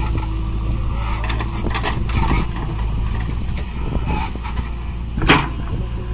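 Diesel engines of a tractor and a JCB backhoe loader running steadily, with scattered knocks as the backhoe works the soil and one sharp, loud clank about five seconds in.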